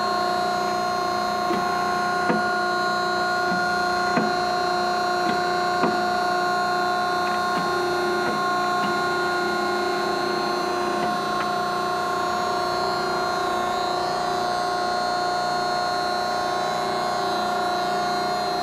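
Steady hum and whine of a Greenerd 10-ton hydraulic press's 5 hp hydraulic pump unit running with the ram at rest, with a few light clicks in the first six seconds.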